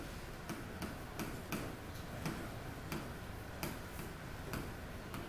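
Light, fairly regular clicking, about three clicks a second.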